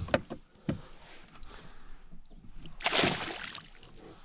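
Water splashing as a small hooked fish thrashes at the surface, with one louder splash about three seconds in and a few light knocks near the start.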